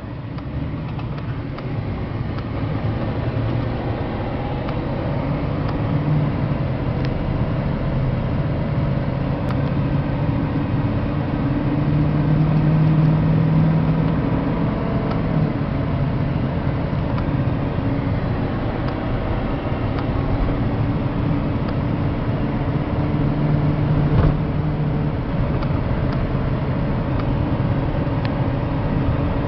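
Vehicle engine and exhaust droning steadily with road noise, heard from inside the cabin while driving. It grows louder over the first few seconds, and the engine pitch shifts slightly now and then.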